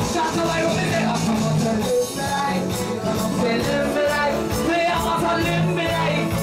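Live band music: a male singer on a microphone over electric guitars and a steady beat.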